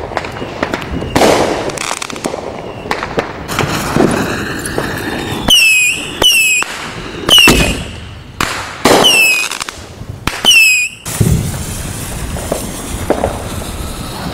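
Consumer fireworks going off in a string of loud bangs. In the middle comes a run of about six sharp shots, each with a short whistle that drops in pitch.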